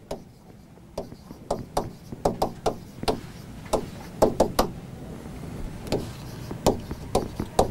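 A pen tip knocking and tapping against an interactive whiteboard's surface while letters are written: an irregular run of sharp taps, two or three a second, starting about a second in.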